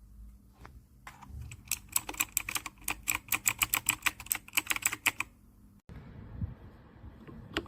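Typing on a compact 68-key mechanical keyboard: a quick, even run of key clicks for about four seconds, then a short gap and a single keystroke near the end.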